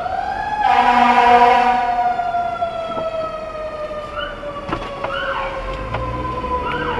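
Emergency-vehicle siren wailing: it winds up, a loud horn blast sounds about a second in, then the wail falls slowly, with a few short chirps near the end.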